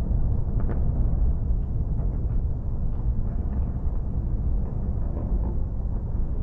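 Deep, steady rumble of demolished high-rise towers collapsing and their debris settling, with a few faint crackles over it.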